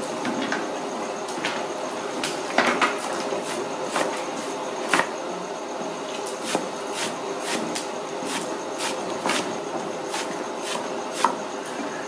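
Large knife chopping a pile of leafy greens on a round wooden chopping block: sharp chops, a few at first, then about two a second from the middle on.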